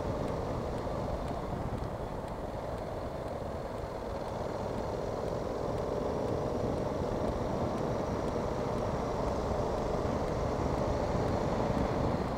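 Motorcycle engine running while riding, its note dipping slightly and rising again near the end, over a steady rumble of wind noise on the microphone.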